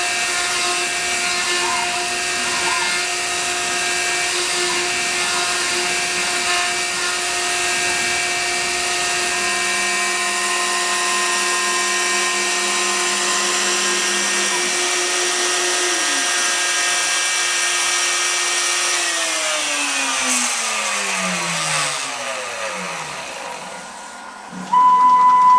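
CNC router's spindle motor running with a steady whine while carving. About three-quarters of the way through it spins down, its pitch falling until it stops. Near the end a loud steady tone starts.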